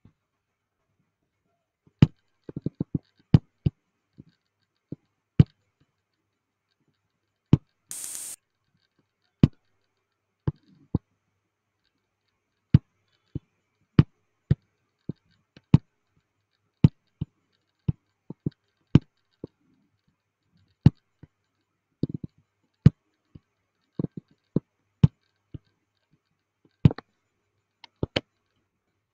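Computer mouse clicking: single sharp clicks at irregular intervals, some in quick clusters, with one short burst of hiss about eight seconds in.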